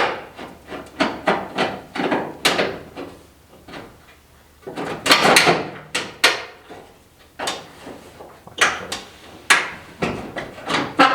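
Repeated knocks and clanks, with stretches of rattling and scraping, from body parts being worked loose and handled on an old pickup's front end during teardown.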